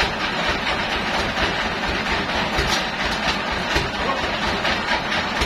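Band sawmill machinery running: a steady mechanical rumble with constant rattling and clatter.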